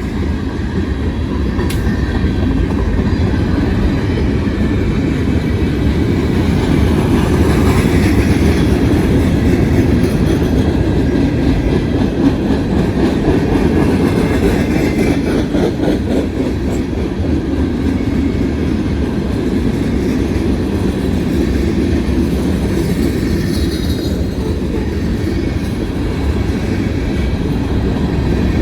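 Freight train cars rolling past: a steady low rumble of steel wheels on the rails, with a faint wheel squeal now and then.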